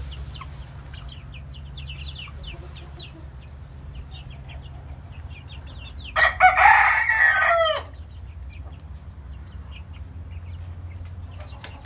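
A young rooster crows once, about six seconds in: a crow of nearly two seconds that ends on a falling note. Before it come faint short chirps, over a steady low hum.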